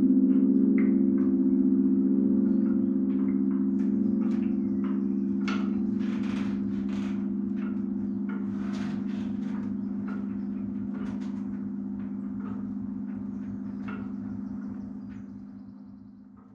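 The low hum of church tower bells (a ring of ten, tenor about 10 cwt) dying away after ringing, with scattered light clicks and knocks from the bells and their frame. It fades out near the end.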